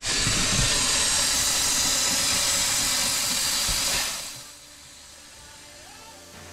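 Steam hissing loudly out of the boat's inboard engine as the engine bay is opened, coolant boiling off from an engine that has cut out and lost its coolant. The hiss starts abruptly and fades away about four seconds in.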